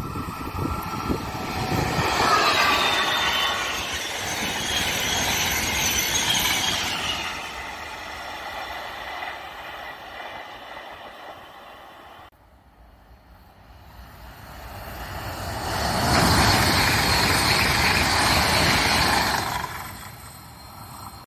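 Two trains pass at speed one after the other. The first rushes by with high whining tones over the wheel noise and fades away, then the sound cuts off suddenly. A second builds up, passes loudly, and falls away near the end.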